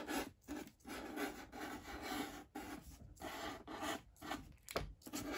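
Black felt-tip marker drawing on paper: a run of short scratchy strokes with brief gaps between them as bubble letters are outlined.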